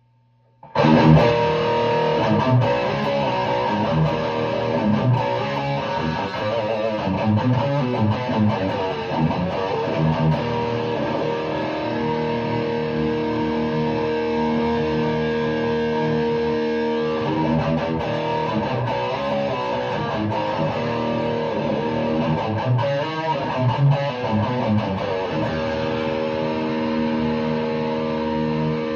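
Charvel Henrik Danhage SC-1 electric guitar played through an amplifier, starting about a second in with picked notes and riffs. A chord is left ringing for several seconds in the middle and again near the end.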